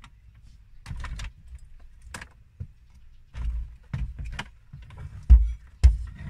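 Plastic dashboard trim of an Isuzu Crosswind being pried and pulled loose by hand: a string of irregular clicks, rattles and knocks, with two loud thumps near the end as the panel comes free.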